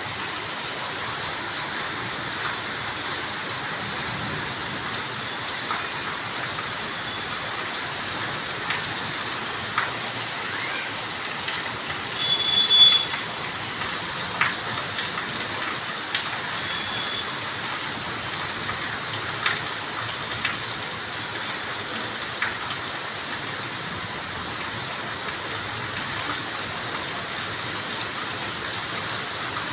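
Steady rain falling, with individual drops ticking sharply on a hard surface. A short high-pitched tone sounds about halfway through, the loudest moment, and a fainter one follows a few seconds later.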